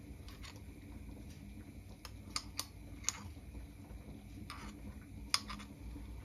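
A handful of light clicks and taps of a metal spoon against a glass sauce jar as sauce is scraped out, spaced irregularly over a low steady hum.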